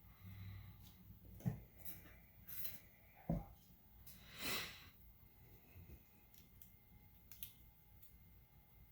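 Faint handling noise while a PS4 controller is being worked on: a few light clicks and taps of small parts, and a short breath-like swish about four and a half seconds in.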